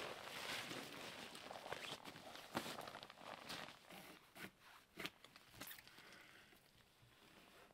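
Faint, irregular footsteps crunching in snow, thinning out and getting quieter toward the end.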